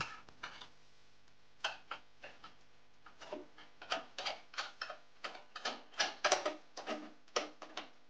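Irregular light metallic clicks and rattles, a dozen or more spread over several seconds, as a hand works the small metal latch hardware at the back of a Fujitsu Esprimo D538 small-form-factor PC case.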